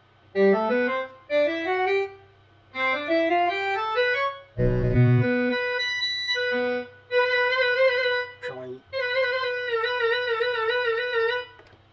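Akai EWI5000 electronic wind instrument being played as a test after repair. It plays several quick rising runs of notes, then long held notes with vibrato. A steady low hum sits underneath.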